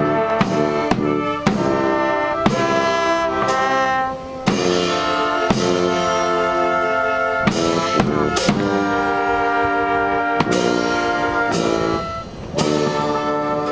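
Solemn brass music: held chords that change every half second to two seconds, punctuated by drum beats.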